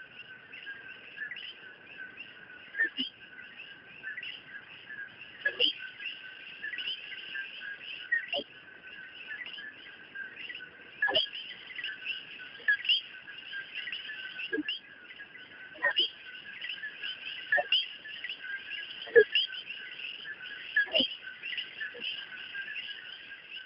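Dense chorus of many birds chirping and calling, a forest ambience, with about a dozen louder sharp clicks at irregular intervals.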